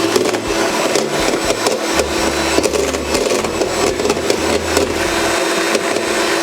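Electric hand mixer running steadily in cake batter, its motor holding one even hum, stopping abruptly at the end.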